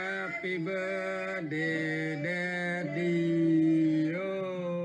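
A man singing a birthday blessing song in long held notes that step from pitch to pitch.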